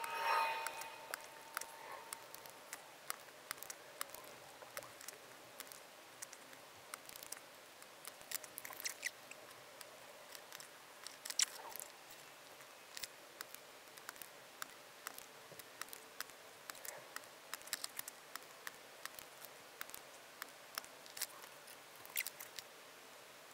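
Faint, scattered small clicks and taps of a soldering iron and desoldering pump working on a scanner's circuit board, with one louder snap about eleven and a half seconds in.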